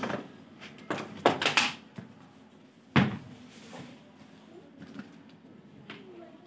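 Several sharp knocks and clatters, the loudest a single thump about three seconds in.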